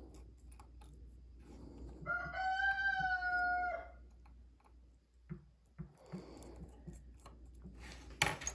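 A drawn-out animal call, one held note with overtones lasting about a second and a half, beginning about two seconds in. Around it come light clicks of small tools handling the watch movement, with a sharper click near the end.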